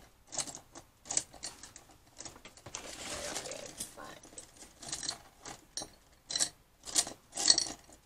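Desktop handling noise: a run of sharp clicks and taps, with paper rustling about three seconds in as an envelope is picked up and laid down. The loudest taps come near the end.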